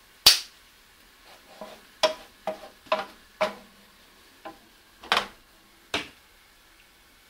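Wooden spatula knocking and scraping against a nonstick frying pan while stirring a creamy sauce: about ten short, sharp clacks and taps at an uneven pace, the loudest one just after the start.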